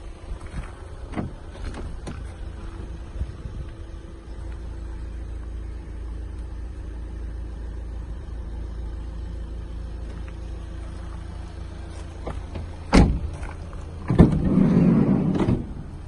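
Volkswagen Caddy 2.0 TDI diesel van with a steady low rumble and hum. A sharp knock comes about 13 seconds in, then a louder rushing burst of about a second and a half.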